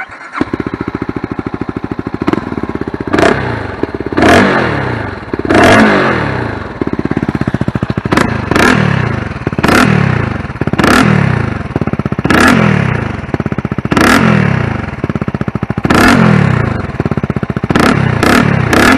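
A 2022 CFMoto 300SS's single-cylinder engine fires up about a second in, settles into idle, then is blipped about a dozen times, each rev climbing to about 5500 rpm and dropping back. It breathes through a Yoshimura GP-Force medium can with its sound baffle fitted.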